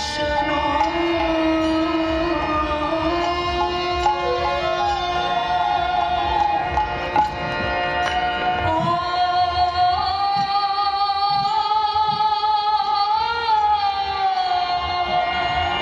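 Bengali devotional kirtan music: a sustained, slowly gliding sung melody over a steady held accompaniment, with a few soft drum strokes.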